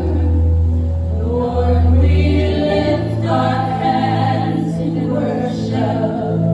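Gospel music: voices singing slow, held notes over a sustained low bass accompaniment that changes notes every second or two.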